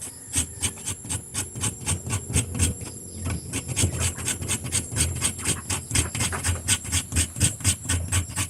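The edge of a Cold Steel Finn Wolf folding knife, Scandi-ground, scraping shavings off a stick of resin-rich fatwood in quick, even strokes, about four or five a second.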